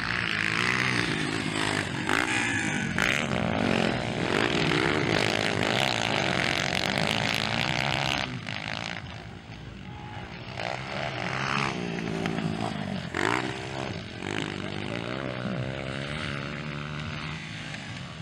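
Several 230 cc motocross bikes racing on a dirt track, their engines revving up and down over and over. The sound dips for a while about nine seconds in.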